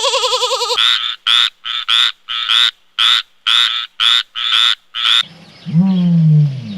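A frog croaking in a quick series of about a dozen short calls, roughly three a second, right after the tail of a wavering bleat. Near the end a low, falling growl begins.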